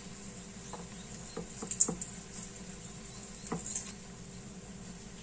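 Garlic cloves being peeled by hand at a plastic cutting board: a few light, scattered clicks and crackles of skins and knife, over a faint steady hum.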